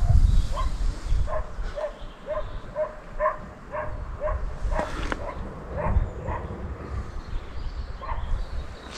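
An animal calling repeatedly in short, clipped, pitched calls, about two a second, over low rumble.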